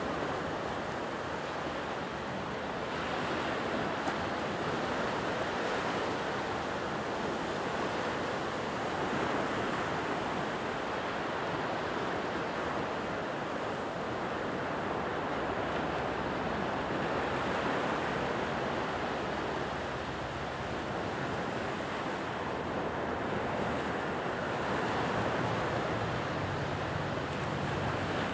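Surf breaking on a sandy beach: a steady wash of small waves, swelling and easing slowly.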